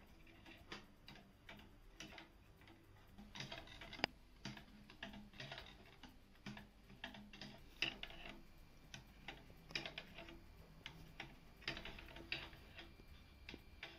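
Weight-driven wooden Antipods kinetic sculpture running: its plywood escapement wheel and pallet arms tick and knock, a few faint clicks a second at an uneven pace, now and then a louder one.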